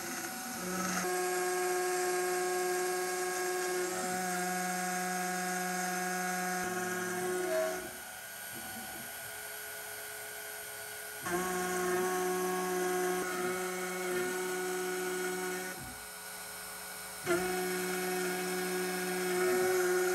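CNC router spindle turning a 1/8-inch end mill at 10,000 rpm, cutting aluminium plate: a steady high motor whine with the cutting noise on top. It comes in several clips that change abruptly, dropping quieter for a few seconds about 8 seconds in and again around 16 seconds.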